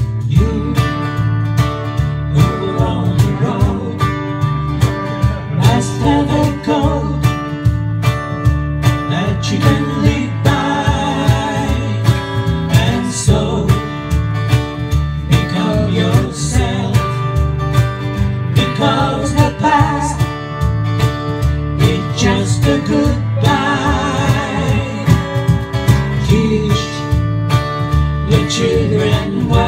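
Small live acoustic band playing a country-folk song: strummed acoustic guitar and mandolin with electric guitar, and women's voices singing the melody and harmony over a steady beat.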